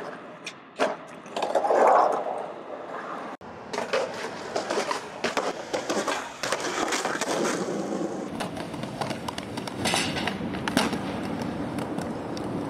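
Skateboard wheels rolling on concrete, broken by sharp clacks of the board's tail and wheels hitting the ground. The sound breaks off abruptly about three and a half seconds in, and a steadier rolling noise with scattered clacks follows.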